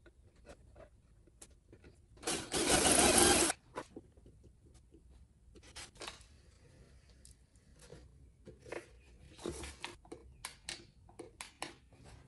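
A cordless drill runs in one loud burst of about a second and a half, driving a screw into a painted wooden lid. Light knocks and clicks of the wooden piece being handled and set down on the bench follow, with a shorter, quieter burst near the end.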